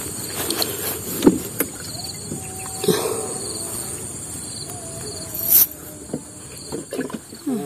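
Steady high-pitched insect chorus, with scattered sharp clicks and knocks from close handling; the loudest come about a second in and about five and a half seconds in.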